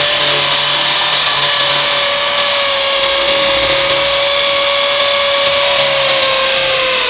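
Oshima K550 550 W corded hammer drill running in concrete (hammer) mode with its masonry bit boring into a concrete block. It makes a steady, loud whine over a dense, even grinding noise.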